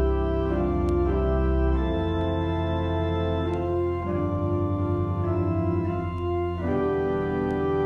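Church organ playing slow sustained chords over a held bass, the harmony changing every second or two.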